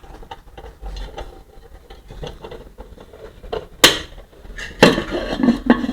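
Clay cooker being handled: a few sharp clinks and knocks of its earthenware lid and clip, with the louder ones past the middle.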